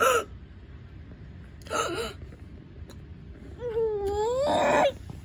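A person's voice making a short vocal sound about two seconds in, then a long wailing moan that dips and rises in pitch, swelling louder before it cuts off near the end.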